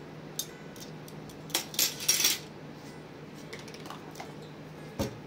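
A steel measuring spoon clinking against dishware: a light click, then a cluster of sharp metallic clinks about two seconds in. A single dull knock comes near the end, over a faint steady hum.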